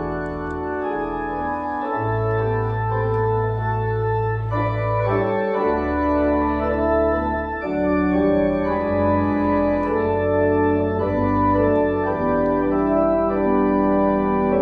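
Church organ playing a postlude of sustained chords over long held bass notes, the chords changing every second or two.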